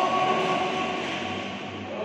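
Echoing noise of a large indoor sports hall, voices dying away in the reverberation and the hall's background noise slowly fading.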